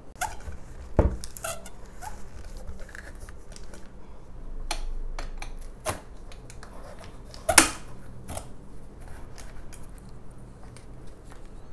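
Handling sounds of a toddler tricycle's handlebar and fixing bolt being fitted: scattered light clicks and knocks of plastic and metal parts, with a louder knock about a second in and a sharp click about seven and a half seconds in.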